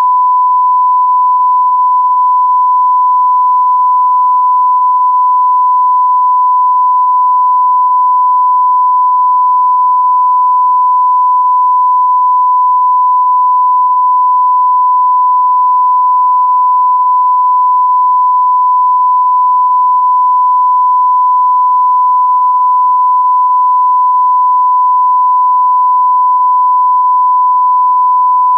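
A steady, unbroken 1 kHz line-up tone: the reference test tone that runs with colour bars at the head of a tape, used for setting audio levels.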